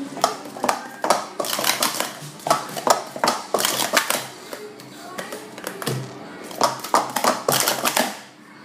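Hard plastic sport-stacking cups clacking and clattering against each other and the mat as they are stacked up and down, in quick irregular knocks, with music underneath.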